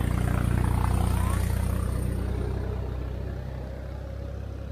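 Vehicle engine idling with a steady low throb, fading away over the second half.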